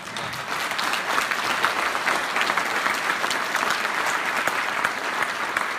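A large audience applauding, a dense, steady clapping.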